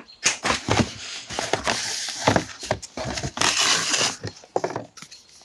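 Hands handling small cardboard gift boxes and packaging: a series of sharp taps and clacks with bursts of cardboard and paper rustling, and a longer scraping rustle about three and a half seconds in.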